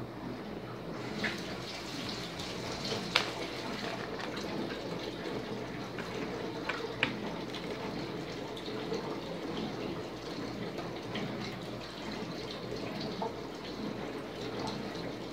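Small plastic Lego pieces clicking as they are picked out of a plastic bin and fitted together by hand, a few sharp clicks over a steady rushing hiss.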